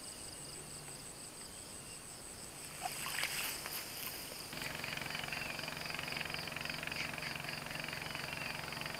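Insects chirring steadily in fast pulses, with a brief splash and trickle about three seconds in as a plastic bucket of lake water is lifted out dripping. About four and a half seconds in a steady hiss with a low hum comes in.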